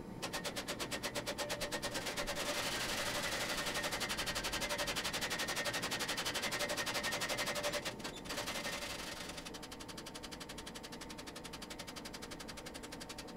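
Mechanical power hammer pounding a red-hot steel blade with a rapid, even run of blows, drawing out the blade. The blows stop briefly about eight seconds in, then go on more lightly.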